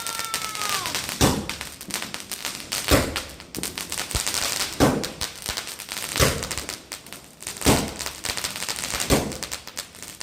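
A 25-shot firework cake firing shot after shot: a loud bang about every second and a half, six in all, with crackling between the bangs.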